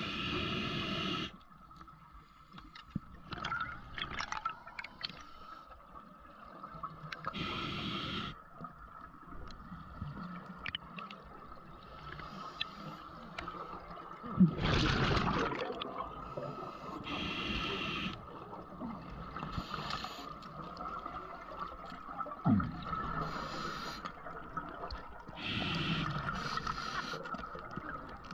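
Underwater scuba breathing through a regulator: the hiss of each breath and gurgling bursts of exhaled bubbles, recurring every few seconds, over a faint steady high whine.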